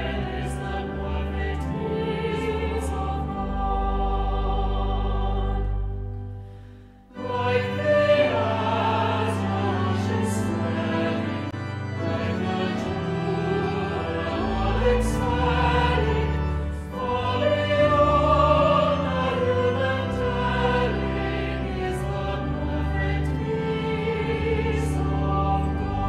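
A choir singing a hymn: the last line of one verse, a brief break about a quarter of the way in, then the next verse begins.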